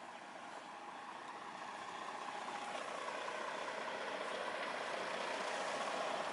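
An engine running steadily, growing gradually louder.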